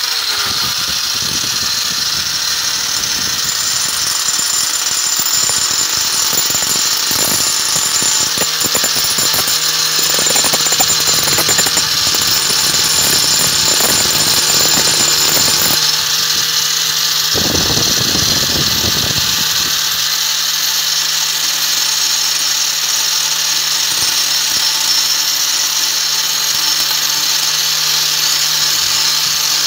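Angle grinder running at speed, fitted with a homemade adapter and drill chuck holding a small cylindrical grinding stone: a steady high-pitched whine, with an uneven rasping that comes and goes in the first twenty seconds or so. The chuck-and-stone rig runs slightly out of balance.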